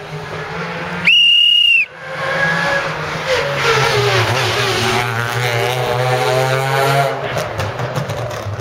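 A whistle blown once, a single steady shrill note lasting under a second, about a second in. Then a Ford Fiesta rally car's engine comes up and passes at speed, its pitch rising and then dropping away near the end.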